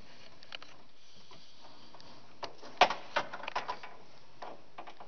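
A quick run of sharp clicks and knocks, about half a dozen in a second and a half, near the middle, the second one the loudest, over a steady hiss.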